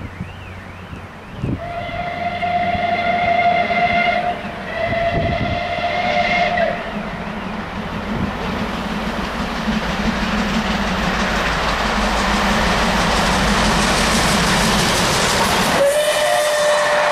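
Southern Railway 'Merchant Navy' class steam locomotive No. 35028 Clan Line sounds its whistle in two long blasts as it approaches, then runs through at speed. The noise builds into a loud, steady rush with a low rumble, and the Pullman coaches' wheels clatter over the rail joints.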